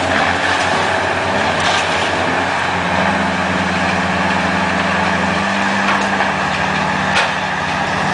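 Heavy truck engine running steadily. Its pitch steps up a little about three seconds in and settles back down about two seconds later, with a few sharp knocks, the clearest one near the end.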